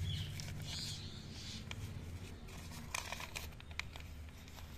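Thin polythene nursery bag crinkling and rustling as it is peeled away from a soil root ball, with a few soft clicks, over a low steady hum.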